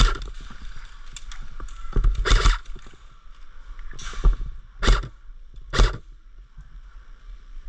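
A few dull thumps and rustles, about a second apart near the middle, over steady low wind rumble on the microphone.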